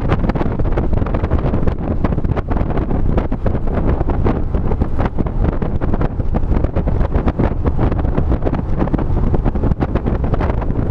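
Onboard sound of a Porsche 911 at speed on a race track: a dense, rough rumble of the flat-six engine, tyres and road, with constant wind buffeting on the camera microphone.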